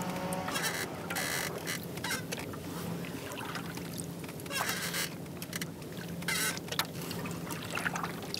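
Double-bladed kayak paddle strokes on calm water: the blades dip and splash on alternating sides, with water dripping off them between strokes. A steady low hum runs underneath.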